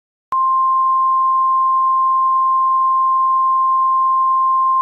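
A single steady electronic alert tone near 1 kHz, switched on abruptly and held at one pitch and level: an emergency-broadcast attention signal sounding before an alert message.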